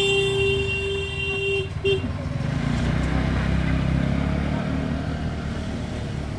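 A vehicle horn sounds one steady note for nearly two seconds, followed by a short toot. Under it and after it, a bus engine rumbles steadily, heard from inside the bus.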